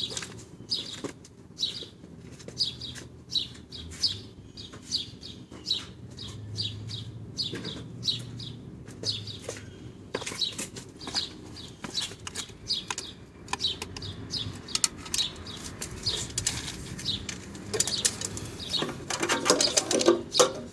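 Repeated short, sharp high-pitched clicks, about two or three a second, then a louder clatter of small metal parts near the end.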